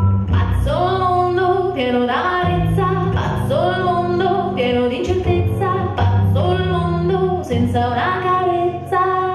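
Recorded song music: a singing voice in repeated upward-sliding notes over a steady bass line.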